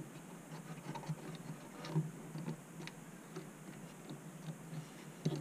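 Faint, irregular small clicks and ticks of fingers working a thin wire around a screw terminal post on the back of a model railway power controller, with slightly sharper ticks about two seconds in and near the end.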